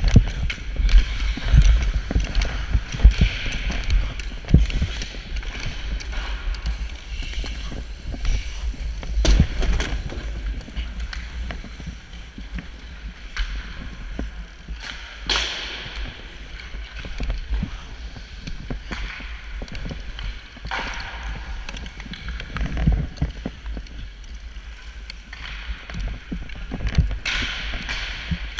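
Sled hockey sled gliding on rink ice, with the scrape and clack of stick picks digging in to push it along and short knocks from the sled and sticks. A low rumble from the moving body-mounted camera runs underneath.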